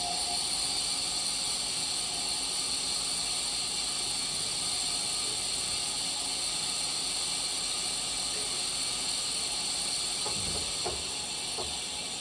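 DMG Mori ecoMill 1100V vertical milling machine running with a loud, steady hiss that starts abruptly. A few faint knocks come near the end.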